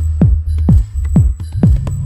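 Electronic dance music built from ALMA observatory's sounds derived from radio waves: a steady four-on-the-floor kick drum about twice a second, each hit dropping in pitch, over a sustained bass line with light high ticking percussion.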